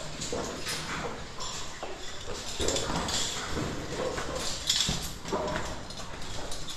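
Footsteps scuffing and knocking on the rock floor of a narrow cave passage as a caver walks through it, with clothing and gear rustling.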